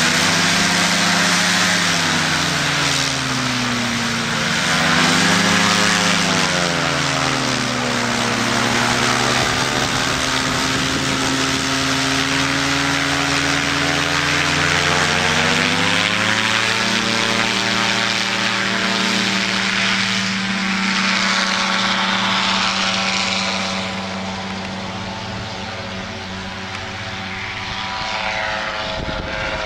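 Powered parachute's engine and propeller running, its pitch rising and falling twice in the first several seconds, then climbing about halfway through and holding steady at a higher pitch. It grows fainter for a few seconds near the end.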